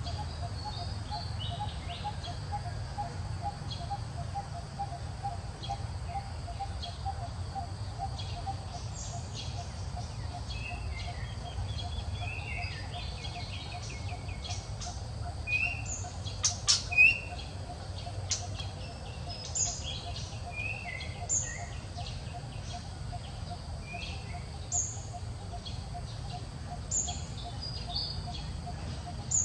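Outdoor birdsong: short repeated chirps and descending calls, over a steady fast-pulsing tone. A few sharp clicks around the middle are the loudest sounds.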